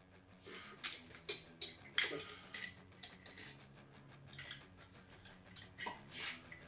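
GY6 scooter engine's cylinder being worked off its studs and piston by hand: a scattered series of light metallic clicks and clinks, some briefly ringing, loudest about one and two seconds in.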